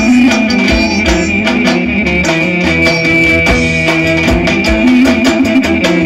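Loud Roman havası dance music from a live wedding band: drums beating a busy, steady rhythm under a long held high melody note and a bass line.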